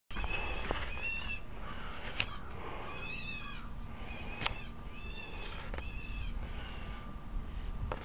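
A bird calling in short pitched calls, about four of them spaced a second or two apart, each bending up and down in pitch. Two sharp clicks fall between them.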